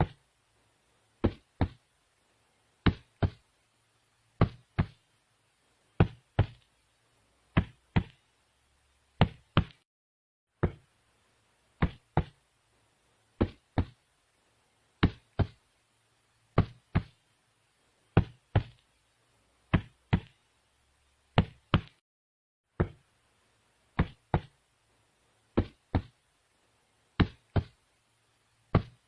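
Slow heartbeat sound effect: paired lub-dub thumps, about one beat every 1.6 seconds, repeating evenly.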